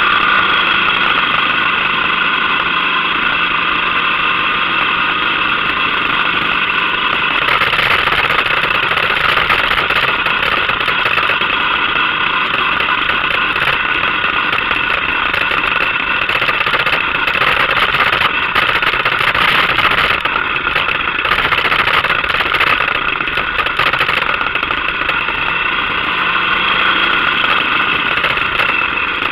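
Motorcycle engine running at a steady cruise under wind and road noise, the noise growing louder about seven seconds in.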